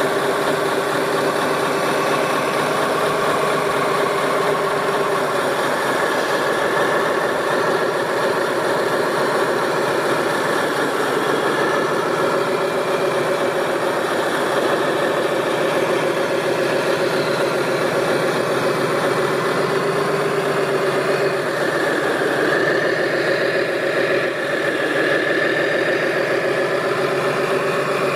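Radio-controlled construction machine running steadily: a continuous engine-like hum whose pitch drifts slowly up and down, briefly dipping about three-quarters of the way through.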